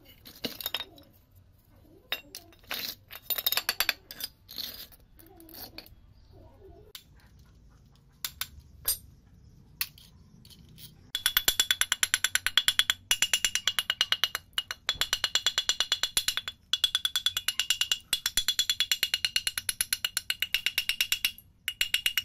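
A screwdriver scraping and picking debris out of a rusty electric water pump motor gives scattered scrapes and clicks. About eleven seconds in, a rapid, even run of ringing metal-on-metal taps begins as a hammer strikes the rusted pump housing, with a few short breaks.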